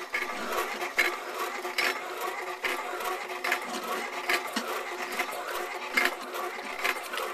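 Solar-powered Simple Pump deep-well piston pump running: a steady mechanical hum with a knock on each stroke, a little more than once a second.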